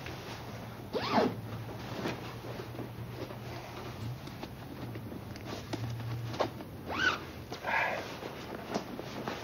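Sleeping bag's nylon shell rustling and its zip being worked as someone wriggles into it, with a few louder swishes about a second in and near the end.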